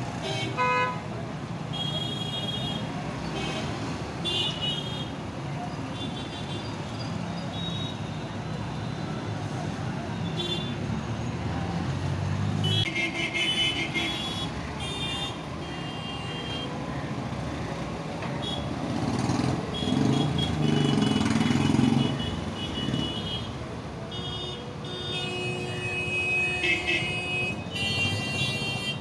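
Street traffic with a steady engine rumble and frequent short horn toots; a vehicle passes louder about two-thirds of the way through.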